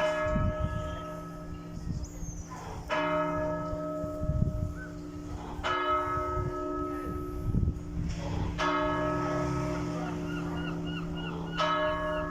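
Church bells of St Ia's, St Ives, struck slowly, one stroke about every three seconds, each ringing on until the next: a mourning toll for the death of Queen Elizabeth II. Near the end a bird calls rapidly, about three chirps a second.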